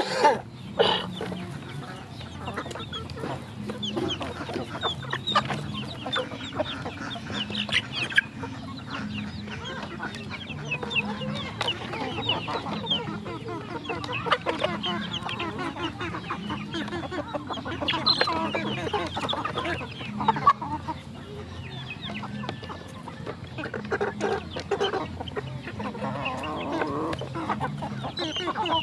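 A flock of chickens clucking and calling as they feed, with frequent sharp pecking clicks on grain and a woven basket.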